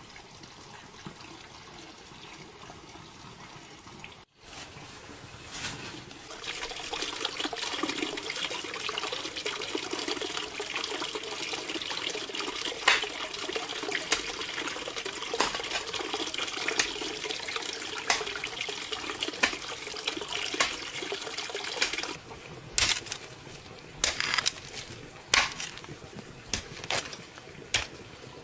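Water running in a steady stream, then stopping; after it come a series of separate sharp clicks and knocks.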